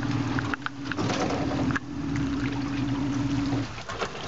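A boat's motor runs with a steady hum, dropping out briefly twice and stopping near the end. Water splashes and knocks against the hull and net frame.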